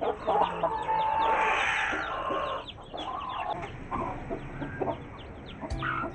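Week-old chicks peeping in quick, high, falling chirps, with a mother hen clucking among them. The hen's calls are loudest in the first two seconds or so.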